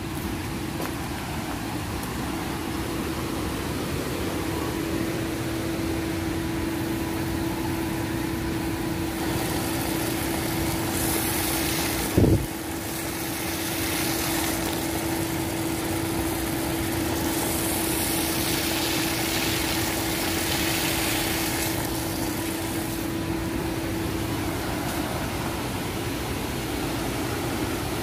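Steady mechanical hum carrying a constant low tone, with water from a pipe splashing onto concrete and over hands rinsing dates. A single sharp knock sounds about twelve seconds in, and the tone drops out near the end.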